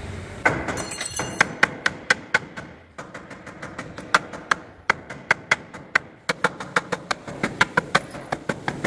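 Ratchet on a frame-straightening bench's chain-pulling gear, worked by hand and clicking sharply and evenly at about four to five clicks a second, in runs broken by short pauses about three and six seconds in. The ratcheting takes up chain tension to pull the crash-damaged front rail straight.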